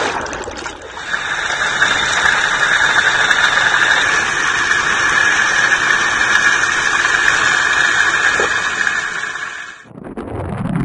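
A boat's outboard propeller churning water, heard through a waterproof camera at and below the waterline: a steady rush of water and bubbles with the engine under it. Near the end this cuts off and a rising whine begins.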